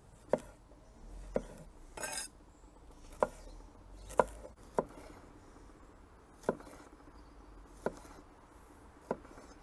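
Knife slicing a red bell pepper into strips, the blade knocking on the cutting board about eight times at uneven intervals.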